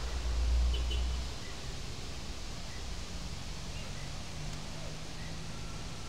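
Steady outdoor background noise with a faint high chirp repeating about every two-thirds of a second. A low rumble fades out about a second and a half in.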